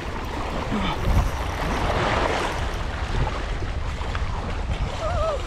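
Wind buffeting the microphone over the wash of sea waves against the rocks, a steady rushing noise with a deep rumble. A short wavering whistle-like call sounds near the end.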